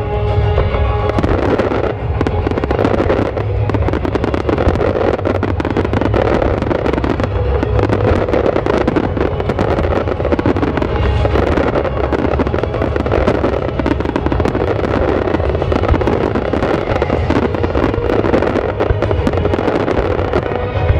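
Fireworks display: a dense, continuous run of rapid crackling and banging from many shells and ground-level effects going off, over a low rumble, with music playing under it.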